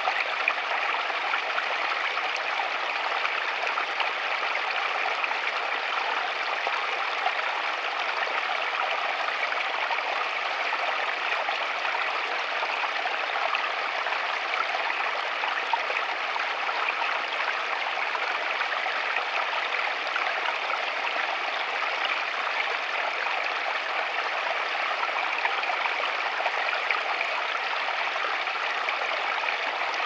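Small rocky stream tumbling down a little cascade over stones, a steady, unbroken rush and trickle of water.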